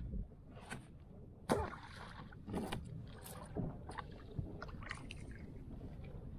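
Scattered knocks, rustles and small splashes from a fisherman moving about in a kayak, at irregular intervals.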